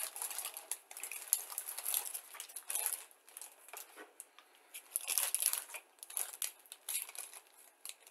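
Thin plastic bags holding plastic model kit sprues crinkling as they are handled. The rustling comes in irregular bursts, with the loudest stretch about five seconds in.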